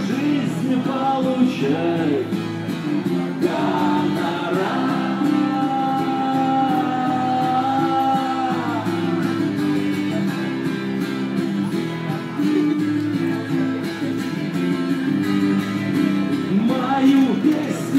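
A street band playing a song: a voice sings over steady chords, holding one long note in the middle.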